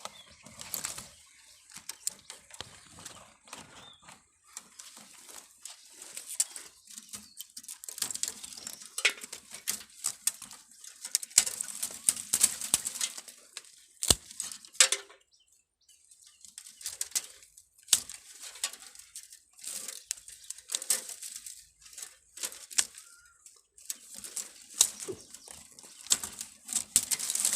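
Close, irregular rustling and crackling handling noise, with many sharp clicks and a few louder snaps.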